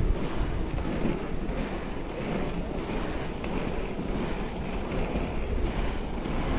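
Wind buffeting the microphone over a steady rumble of inline skate wheels rolling on pavement.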